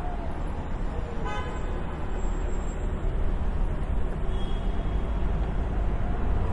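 City street traffic noise, a steady rumble of passing vehicles, with one short car horn toot about a second in.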